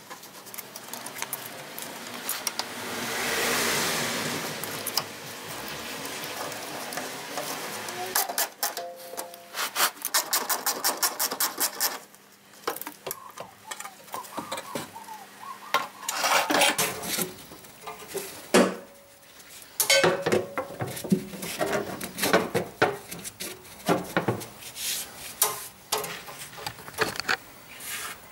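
Ratchet wrench clicking in quick runs as bolts on a rusty sheet-metal underbody cover are undone, with scraping, then knocks and clatters of metal as the panel is worked loose and handled.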